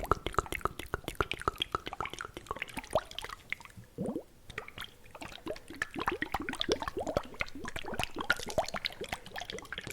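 Fast, wet ASMR mouth sounds close to the microphone: rapid tongue clicks and smacks in dense runs, easing off briefly around four seconds in with a short rising squeak.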